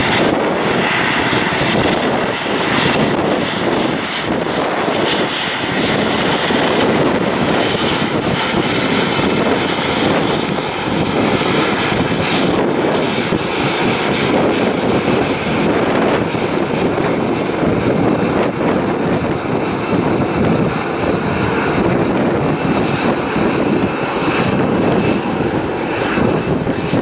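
Boeing 737-700 airliner's twin CFM56-7B jet engines at taxi power as it rolls along the taxiway after landing: a loud, steady jet rumble and hiss.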